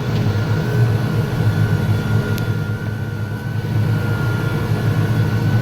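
Case IH MX210 tractor's diesel engine pulling a plow, heard from inside the cab: a steady low drone with a constant high whine above it.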